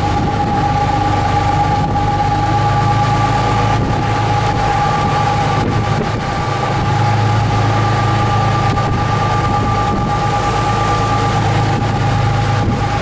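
Sport-fishing boat's engines running steadily while trolling: a low drone with a steady whine above it, over the rush of the boat's wake.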